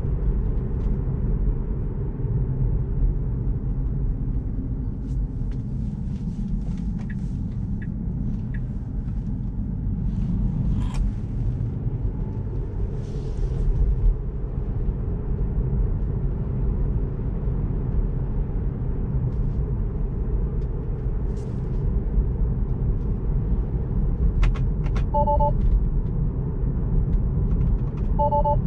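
Steady low road and tyre rumble of a Tesla Model 3 Standard Range Plus on the move, with no engine note. Near the end, two short two-note beeps sound about three seconds apart.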